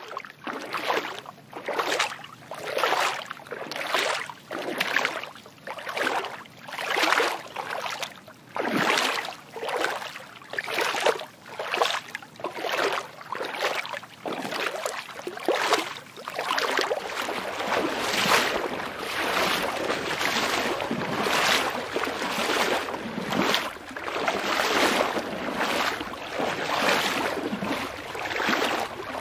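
Rhythmic whooshing of water-like noise, one surge about every second, smoothing into a steadier wash in the second half.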